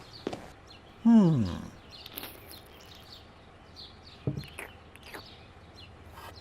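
A man's short groan falling in pitch, about a second in, over faint bird chirps and scattered small clicks and taps.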